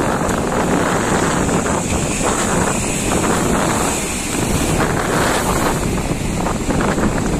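Strong wind buffeting the microphone, with waves washing around a small fishing boat in a rough sea. The noise is loud and steady.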